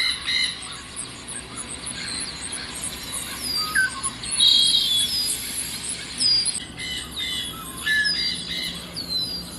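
Birds chirping and calling over a steady background hiss, with quick high chirps repeating throughout and scattered falling calls.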